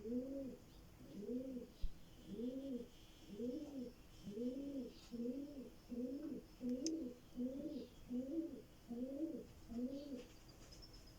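A wood-boring insect buzzing as it drills into wood: a low hum that rises and falls in pitch in short pulses, about one a second, a dozen times over.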